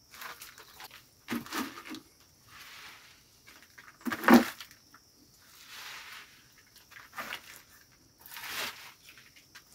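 Handfuls of chopped leafy green plants rustling as they are gathered off a plastic sheet and dropped into a plastic bucket, in several separate bursts. The loudest comes about four seconds in, as a handful lands in the bucket.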